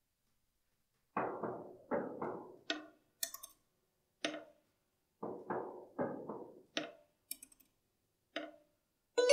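Percussive wooden knocks and taps, about a dozen in an irregular rhythm and each dying away quickly, played on the hackbrett (hammered dulcimer) and piano as the opening of a piece. Just at the end the ringing tones of the instruments come in.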